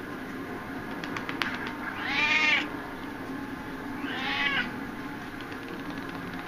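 Domestic cat meowing twice, each call about half a second long and arching up and down in pitch, the two about two seconds apart.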